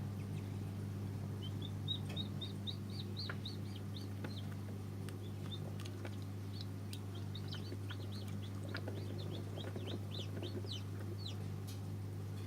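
Newly hatched chicks peeping: quick runs of short, high, down-sweeping cheeps starting about two seconds in, over a steady low hum.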